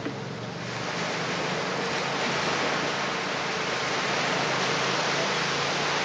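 Small waves washing onto the beach: a steady rushing hiss that swells about a second in and then holds.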